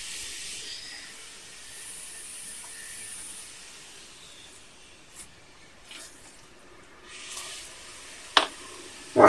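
Wet grated courgette being tipped and scraped out of a plastic food-processor bowl into a mixing bowl: a faint soft hiss of sliding pulp with a few light clicks, then two sharper knocks near the end.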